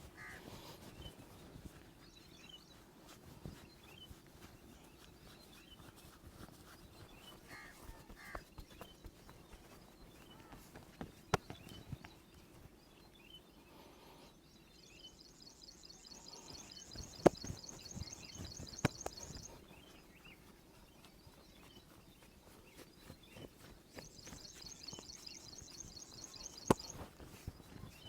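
Quiet outdoor background with faint bird chirps and, twice, a spell of fast, high-pitched trilling lasting a few seconds. A few sharp cracks stand out as the loudest sounds.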